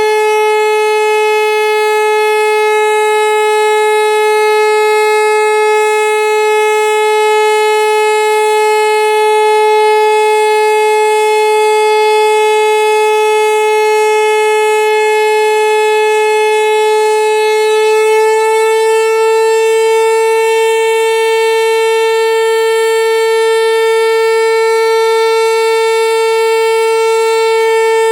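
Pneumatic high-performance civil-defence siren heard at close range, sounding one steady tone rich in overtones, its pitch stepping slightly higher about eighteen seconds in. This is the German all-clear (Entwarnung) signal.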